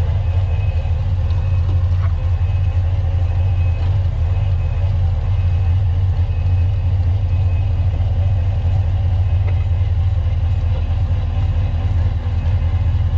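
Kubota SVL90-2 tracked skid loader's diesel engine running steadily as a constant low hum while the machine works a Harley power rake through topsoil.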